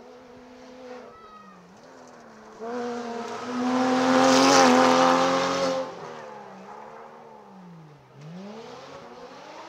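Rally car's engine at full throttle, coming up fast and passing close, loudest about four to six seconds in. As it pulls away the engine note drops and climbs again twice as it shifts through the gears, fading up the road.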